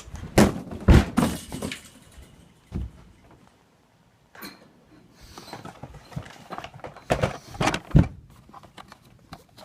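Scattered thuds and clunks of objects being handled and dropped, with the loudest strikes about a second in and again near the end, as debris is put into a trash can.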